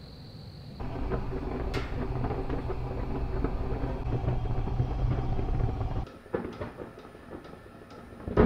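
Fire burning in a glass-walled fireplace: a steady low rumble with small crackles that cuts off about six seconds in. Then come quieter scattered clicks and a single sharp knock near the end.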